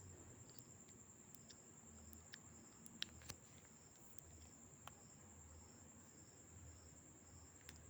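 Near silence: a faint steady high-pitched tone with a soft pulsing at about two beats a second, and a few light clicks.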